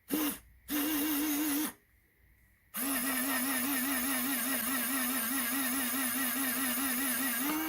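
Small DC motor of a 3D-printed filament feeder switched on in a quick blip, then a one-second run, then running steadily from about three seconds in, driving filament through the feeder. A steady whine with a regular wobble in pitch, which rises slightly near the end.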